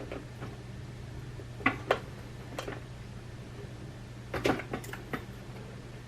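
A few sharp clicks and taps of small parts and tools being handled inside a Mac mini, over a steady low hum: two close together about a second and a half in, another a little later, and a quick cluster a bit past the middle.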